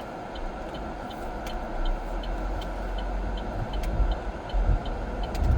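Inside a car: the air conditioning blower and the car's low engine and road rumble running steadily, the rumble growing stronger about two seconds in. A light ticking repeats two or three times a second throughout.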